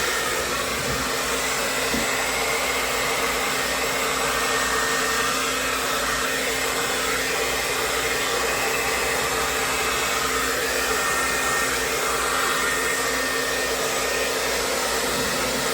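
Hand-held blow dryer running steadily, blowing air across wet acrylic pour paint to push it into flame-like patterns.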